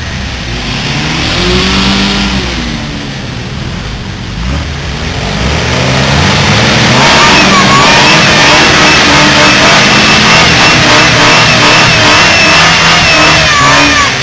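Small off-road 4x4's engine revving in mud, rising and falling in the first few seconds, then held loud at high revs from about halfway through.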